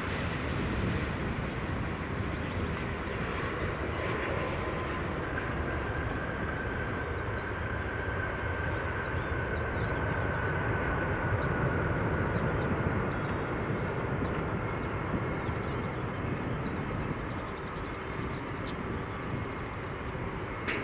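Airbus A350-941's Rolls-Royce Trent XWB engines rumbling steadily during touchdown and rollout on the runway, heard from a distance. A faint whine slowly drops in pitch through the middle, and the rumble eases a little near the end.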